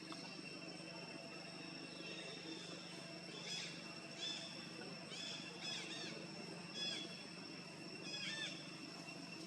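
Steady high insect trilling, with about six short, high-pitched chirping calls from an animal. Each call slides downward, and they come in the second half.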